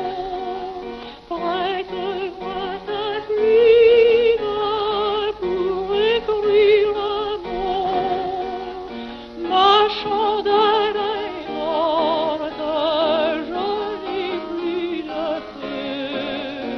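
Music: a high, sung-sounding melody with strong vibrato over sustained lower notes.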